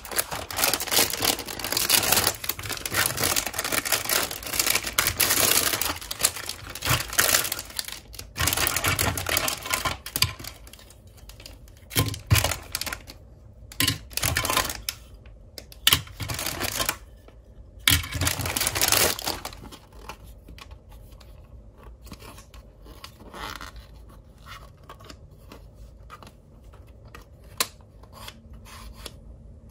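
Thin clear plastic bags crinkling and being torn open, a dense crackle for most of the time. Near the end it gives way to quieter scattered clicks of hard plastic toy parts being handled.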